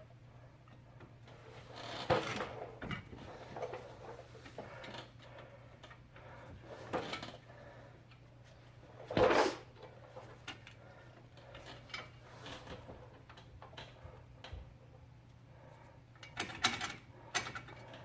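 Scattered metal clunks, clicks and scrapes of hand tools and parts being handled while the hub assembly's bolts are started and snugged, the loudest knock about nine seconds in and a quick cluster near the end, over a faint steady hum.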